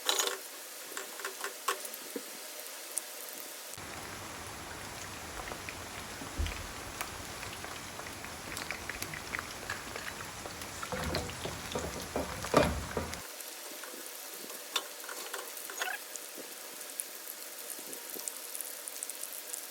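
Marinated chicken pieces frying in hot oil in a pan: a steady sizzle with scattered pops and crackles, and a burst of louder crackling about twelve seconds in.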